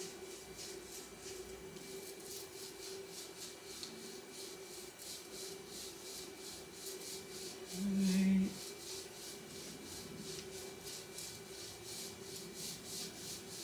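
Sheet of paper slid back and forth under a 3D printer's nozzle during bed levelling, a rhythmic dry scraping of a few strokes a second, over a steady hum. About eight seconds in, a brief low tone sounds for under a second.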